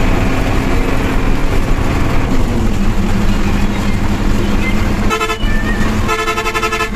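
Intercity bus engine running steadily under way, heard from inside the cab, its note dropping slightly about two seconds in. A vehicle horn sounds twice near the end: a short blast, then a longer one.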